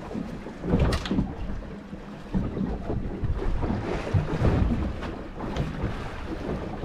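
Wind buffeting the microphone in a low, uneven rumble, with a brief knock about a second in.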